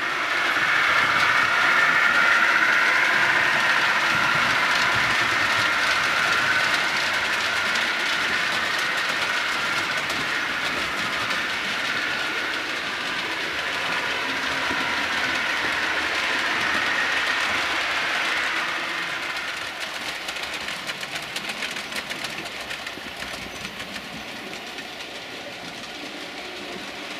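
Model railway train, a steam locomotive hauling coaches, running along the layout track with a steady rattle of wheels and motor. It gets quieter about two-thirds of the way in.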